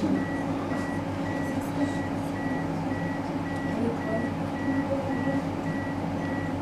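Training defibrillator's metronome giving a rapid, evenly spaced high beep to pace chest compressions on a CPR manikin, over a steady low hum.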